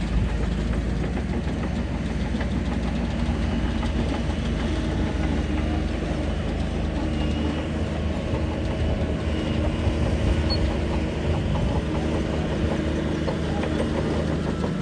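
Shantui DH17 crawler bulldozer's diesel engine running steadily under work, with a dense mechanical rattle over it.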